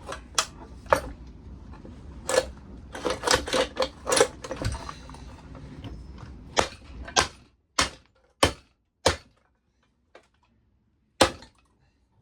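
Sharp metal knocks and clanks from tools working on a seized lawnmower engine during a teardown. There is a quick cluster of hits in the first half, then single strikes spaced about half a second to two seconds apart.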